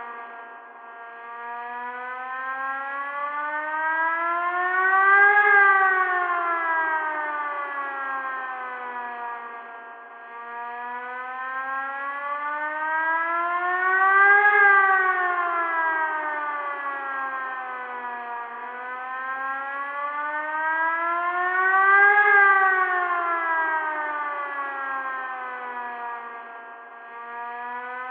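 Tornado warning siren wailing, its pitch slowly rising and falling and loudest at each high point, peaking three times about eight to nine seconds apart.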